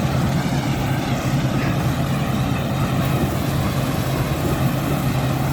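Combine harvester running steadily as it cuts oats, a constant low engine hum under a broad even machine noise.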